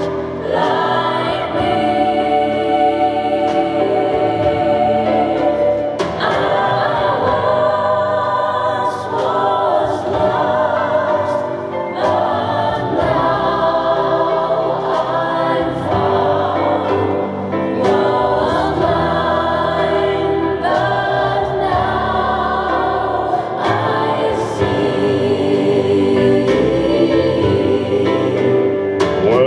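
Gospel music from a backing track: a choir sings long, held chords over accompaniment, with no lead voice yet.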